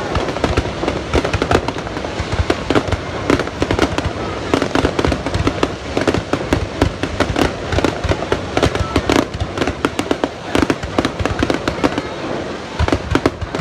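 Fireworks going off in a dense, continuous barrage of bangs and crackles, many overlapping with no pause.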